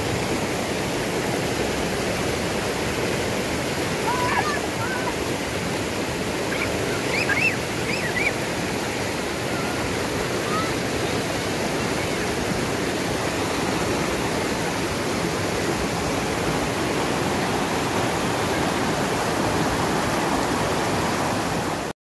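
River water rushing steadily over rocks in shallow rapids. A few short high-pitched cries rise above it about four and seven seconds in.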